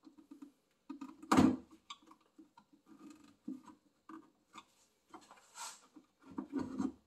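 Hands and a tool clicking and scraping at the locking clip of a coolant pipe connection as it is pried up, with one louder sharp knock about a second and a half in and a cluster of knocks near the end.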